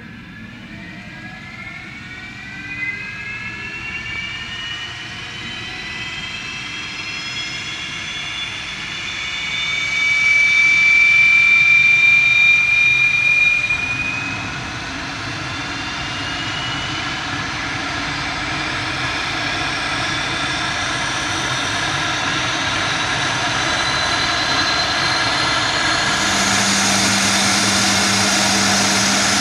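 Honeywell TPE331-12 turboprop engine of a converted Antonov An-2 starting up: a whine rising in pitch as the turbine spools up, loudest with a piercing tone about ten to fourteen seconds in, then settling into a steady running whine with the propeller turning that slowly grows louder.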